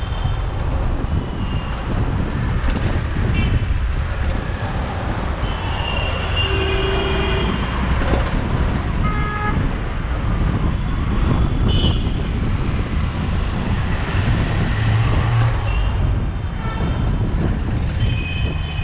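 City road traffic heard from a moving car: a steady rumble of engines and tyres, with several short car horn toots along the way.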